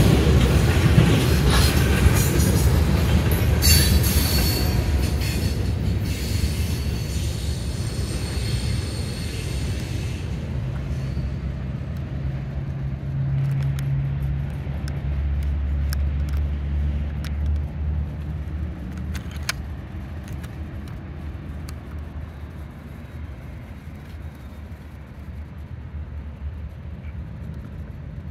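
Freight cars of a Norfolk Southern mixed freight rolling past, steel wheels clattering on the rails with a high wheel squeal. The sharp rail noise stops about ten seconds in, leaving a low rumble and hum that fade as the train moves away.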